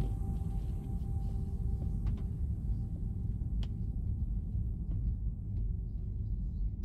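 Steady low road rumble of a car heard from inside the cabin while driving on a wet road, with a few faint ticks.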